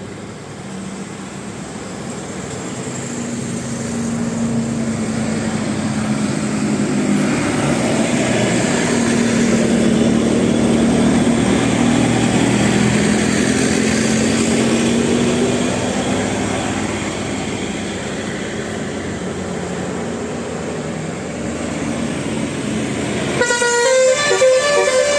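A bus passes by, its engine and road noise building to a peak midway and then easing. Near the end its telolet multi-tone musical air horn starts up, playing a quick run of stepping notes.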